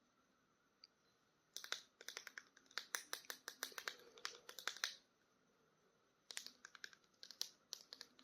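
Rapid clicks and crackles of plastic toy packaging being handled and opened. They come in two spells, with a pause of about a second between them.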